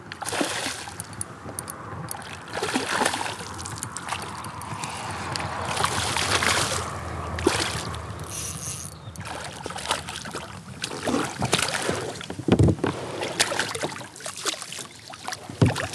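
A hooked smallmouth bass splashing and thrashing at the surface beside a kayak as it is played in, in repeated surges of splashing with sharp little clicks and knocks in between.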